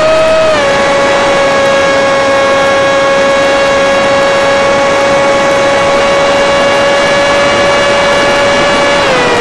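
Electric motor and propeller of an FPV Skyfun flying wing whining steadily in flight. The pitch rises briefly at the start as the throttle goes up, holds level, then drops about nine seconds in as the throttle eases back.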